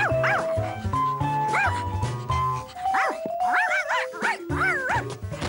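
Cartoon dog barking in about six short, eager yaps that rise and fall in pitch, over light background music with a bass line.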